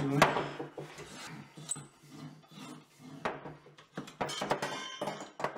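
A Ridgid tubing cutter being turned around 2-inch copper pipe, its cutting wheel scoring the metal with irregular scraping and clicking.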